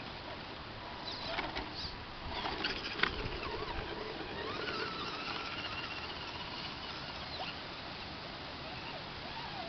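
Axial AX10 electric RC rock crawler scrabbling over rock and grass: faint scattered clicks and scrapes, with one sharp knock about three seconds in.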